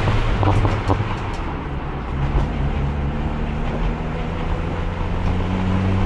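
Race car engine heard onboard, running at low, fairly steady revs with its pitch creeping up slightly near the end, held in fourth gear because the worn transmission will not shift. A few sharp clicks or knocks sound about half a second to a second and a half in.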